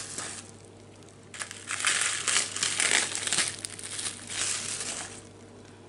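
Bubble-wrap packaging crinkling and rustling as it is handled and unwrapped, for about three seconds from about a second and a half in.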